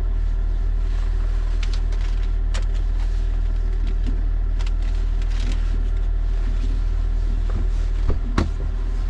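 A 2004 Range Rover L322 TD6 running, a steady low vehicle drone, with a few sharp clicks or knocks; the loudest comes about eight seconds in.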